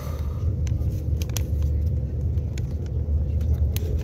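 Train running, heard from inside the passenger carriage as a steady low rumble with a faint hum, and a few light clicks.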